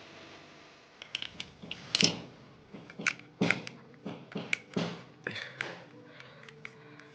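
Irregular clicks and taps of small hard parts being handled, about a dozen over five seconds, typical of working on an electrical switch by hand.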